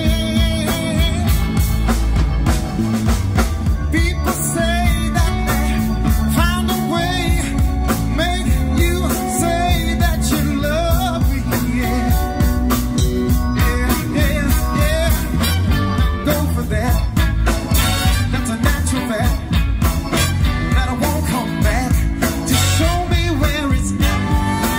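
Live band playing a rock-and-soul number: saxophones, keyboard and drums under several singers' voices.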